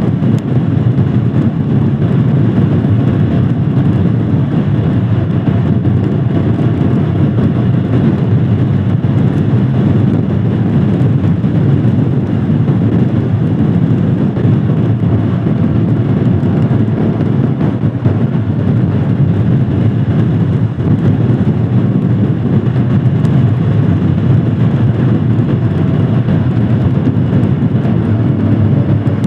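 Royal Enfield Himalayan Scram 411's single-cylinder engine running steadily under way, over a constant rush of road noise.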